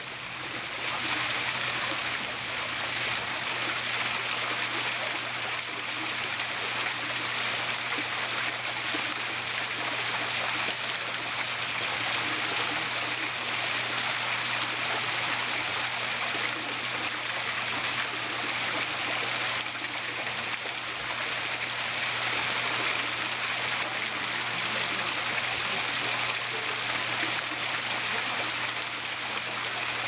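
Steady rush of a small waterfall pouring into a garden koi pond.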